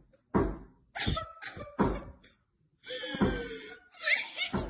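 A series of loud knocks and bangs, about five strokes in the first two seconds, like blows on a door or wall. A longer noisy sound follows, then a short rising squeal near the end.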